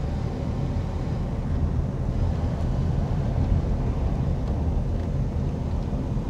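A car driving along a street, heard from inside the cabin: a steady, low engine and road rumble.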